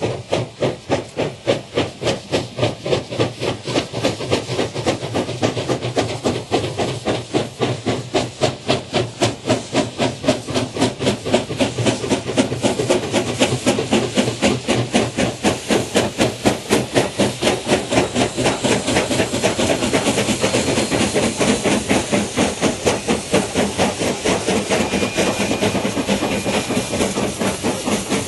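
Two China Railways QJ 2-10-2 steam locomotives working a train together, their exhaust beating a fast, even rhythm of chuffs with steam hiss. The chuffs grow louder and denser as the engines come close.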